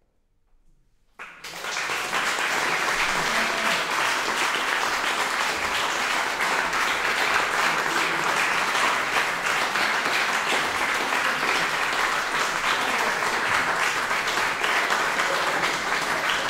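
Audience applause starting suddenly about a second in, after a moment of near silence, and going on steadily.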